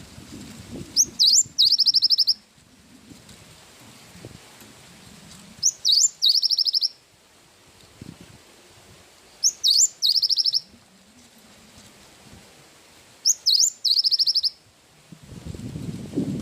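Cinereous tit (gelatik batu) singing the same short phrase four times, about every four seconds: a couple of quick rising whistles, then a fast trill of repeated high notes. A low rumbling noise comes up near the end.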